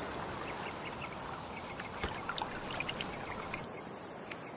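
A steady high-pitched insect trill, like crickets, over a soft hiss, with faint scattered short chirps and a few light clicks.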